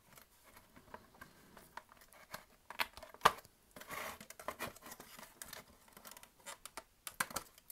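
Small plastic clicks, taps and scraping as the tray-motor board is worked loose from a disassembled CD-ROM drive's plastic frame, with one louder click about three seconds in.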